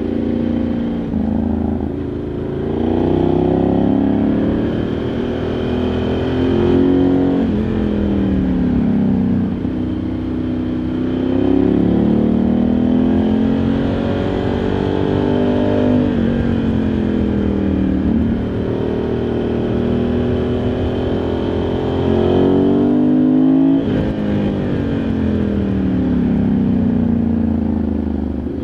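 Ducati Multistrada 1100S's air-cooled L-twin engine heard on board. Its pitch repeatedly climbs under acceleration and falls away, with sudden drops at several gear changes or throttle roll-offs.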